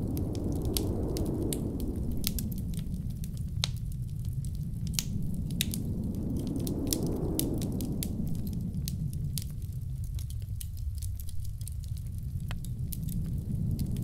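Wood fire crackling with frequent sharp pops over a low, steady rush of blizzard wind that swells and eases twice.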